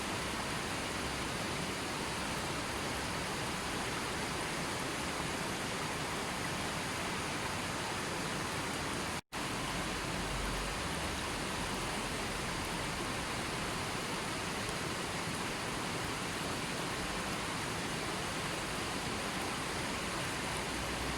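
Steady, even rush of falling water, with a split-second dropout to silence about nine seconds in.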